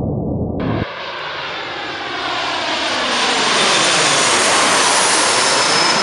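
Avro RJ100 four-engine jet airliner passing low overhead on landing approach: its Honeywell LF507 turbofans make a loud jet roar that grows louder as it comes over, with a sweeping phasing whoosh. A brief low rumble precedes it, cutting off abruptly just over half a second in.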